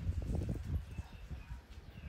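Baby monkey chewing and smacking on food: a quick run of soft, wet clicks that thins out after about a second.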